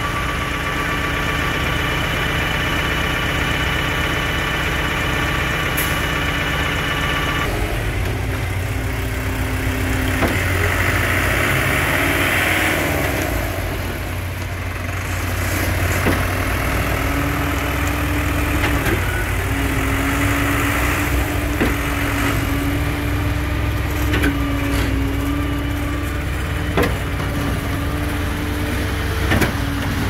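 Heavy diesel engines of a concrete transit mixer truck and a truck-mounted concrete pump running steadily. The tone changes about seven seconds in, and a few sharp knocks come in the second half.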